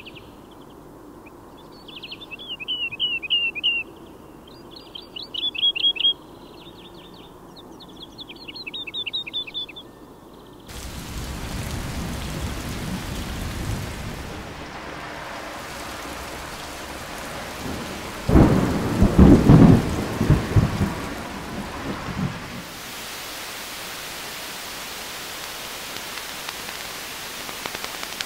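Woodlark singing: three short trilled phrases of quickly repeated notes in the first ten seconds. Then a steady hiss of rain, with a rumble of thunder about eighteen seconds in that lasts a few seconds.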